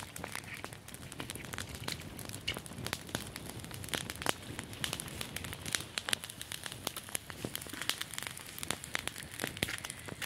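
Small fire of dry grass and leaves crackling, with many irregular sharp pops over a low rustle.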